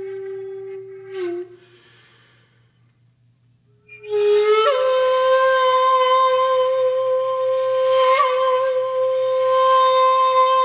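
Background music on a breathy, flute-like wind instrument holding long notes. One note fades out after about a second and a half, there is a short near-silent pause, then a higher note comes in about four seconds in and is held.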